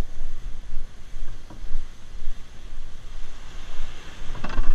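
Wind buffeting the microphone in gusts over small surf washing on the shore, with a short knock near the end.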